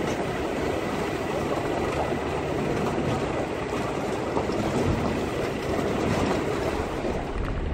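Steady running noise of a vehicle driving on a rough unpaved track.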